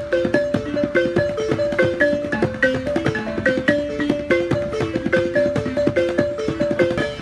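Live acoustic music from a small ensemble: a quick, repeating melodic figure of short ringing notes, cut through by sharp drum strokes.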